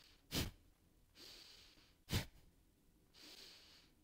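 Breath-of-fire breathing by a woman: two sharp, forceful exhales about two seconds apart, pushed out by contracting the abdominal wall, each followed by a slower, longer inhale.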